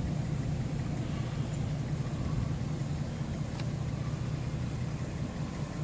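A car driving slowly, its engine and road noise a steady low rumble heard from inside the cabin.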